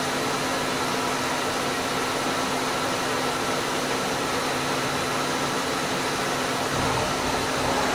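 FEMCO HL-35 slant-bed CNC lathe running, its spindle turning a nylon part while a turret tool cuts it without coolant: a steady machine hum with a few constant tones over an even hiss.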